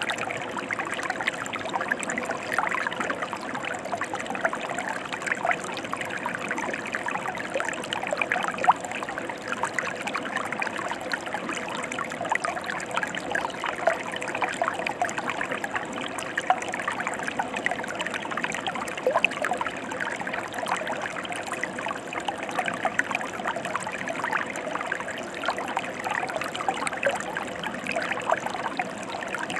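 Mountain stream flowing steadily, with a constant mass of small splashes.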